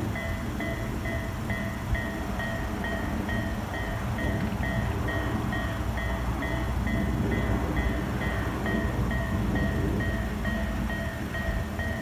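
Japanese railway level-crossing electronic warning bell ringing in an even repeating beat, about three strikes a second, over a steady low rumble. The crossing is closed, with barriers down, for an approaching train.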